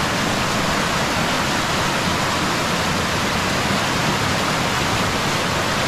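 Muddy floodwater rushing and churning through a creek channel in a loud, steady, unbroken rush: a flash-flood torrent.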